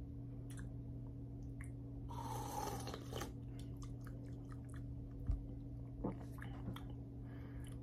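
A person taking a sip of carbonated energy drink from an aluminium can, a short slurp about two seconds in. It is followed by a few small clicks and mouth sounds, over a steady low hum.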